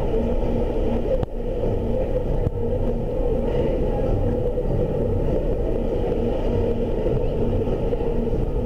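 Steady low mechanical rumble with a constant hum and a faint pulsing tone repeating about twice a second.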